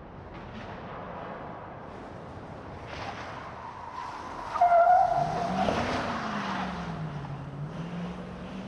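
Truck driving inside a building: its engine runs at a low rumble, then revs up just after the middle and eases back down. A brief high squeal, the loudest moment, comes about four and a half seconds in, just before the revving.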